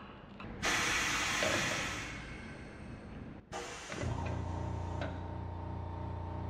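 Shoe finishing machine: a sudden rush of sanding noise that fades over about two seconds, then, after a break, a motor humming steadily.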